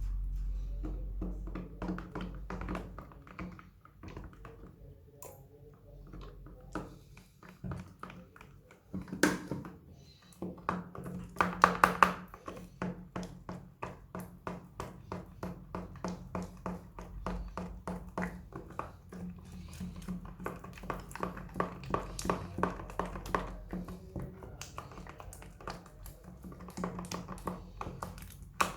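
Slime being squeezed and pressed by hand, making a run of quick sticky clicks and pops, loudest a little before the middle.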